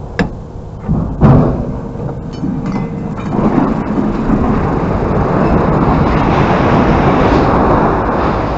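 Scrap metal being unloaded at a scrapyard: a few sharp metal clanks, the loudest about a second in, then from about three seconds a sustained loud rumbling clatter.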